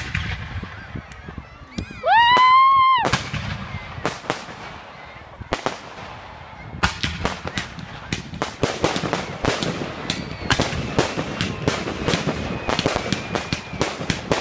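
Fireworks going off: a few scattered bangs, then from about seven seconds a rapid string of sharp cracks, several a second. About two seconds in, a loud high-pitched sound rises and falls over about a second, louder than anything else.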